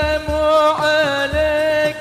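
Shalawat, an Islamic devotional song: a long, slightly wavering sung note over low drum beats that fall in pitch.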